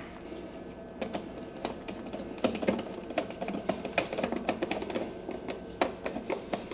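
Screwdriver fastening the plastic side cover of a Kipor IG2600 inverter generator: a run of small, irregular clicks and taps.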